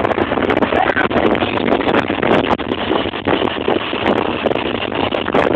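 Bajaj Pulsar 220 motorcycle running, its engine sound rough and noisy through a cheap camera microphone, with crackling clicks throughout.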